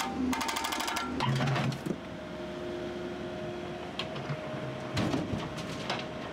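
Backhoe-mounted hydraulic breaker hammering rapidly into road pavement, stopping about a second in. After it a heavy-equipment engine runs steadily, with a few single knocks.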